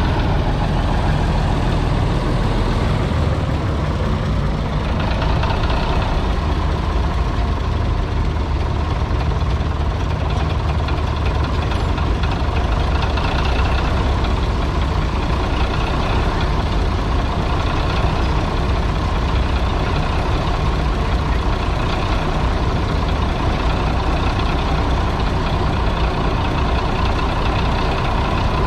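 International Harvester TD-24 bulldozer engine running steadily.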